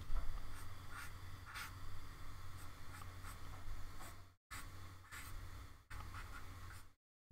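Pencil sketching on paper: irregular scratchy strokes over a steady low hum. The sound cuts out completely for a moment about four seconds in and again near the end, dropouts from the choppy stream.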